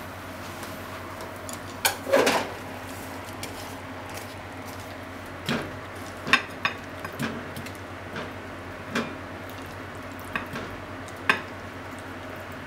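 Wooden chopsticks scraping and tapping against a nonstick frying pan as stir-fried potatoes and shimeji mushrooms are pushed out into a ceramic bowl: scattered clicks and knocks, with a louder clatter about two seconds in, over a low steady hum.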